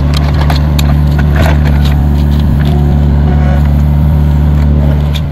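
Mini excavator's diesel engine running steadily at one speed while digging a trench, with scattered knocks and clicks of the bucket and a steel digging bar in the clay soil. The sound fades out at the very end.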